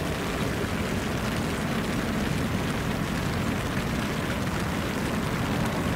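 Steady rain falling, heard from inside a fishing bivvy, with a low rumble underneath.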